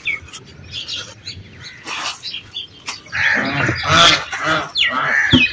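Birds chirping and calling, loudest in the second half, over faint scraping and knocks of dry soil being pushed into a small grave.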